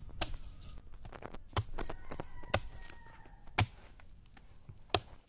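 Machete chopping into young green coconuts: about five sharp, separate strikes roughly a second apart, the last two the loudest.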